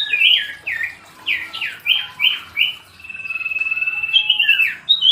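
Common iora (cipoh) singing a varied phrase of clear whistles: a quick series of downward-slurred notes, then one long steady whistle held about a second and a half, then more slurred, falling notes near the end.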